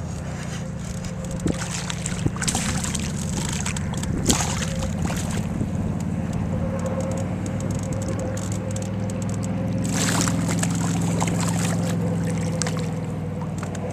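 Water splashing and sloshing at the side of a canoe as a hooked bass is fought and brought in, over the steady hum of a boat engine running.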